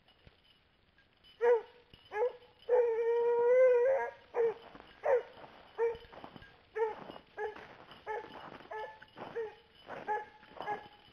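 Coonhound baying on a track. About a second and a half in it starts with a couple of barks and one long drawn-out bawl, then goes on with a steady string of short, repeated barks.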